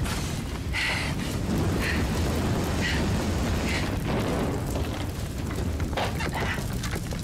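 A house fire's steady low rumble and crackle, with short vocal sounds from a woman about once a second and a few sharp cracks about six seconds in.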